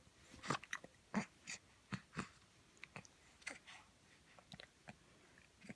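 A baby hiccuping, with small mouth clicks and smacks between: about a dozen short, sharp sounds at uneven spacing, a few of them with a soft low thud.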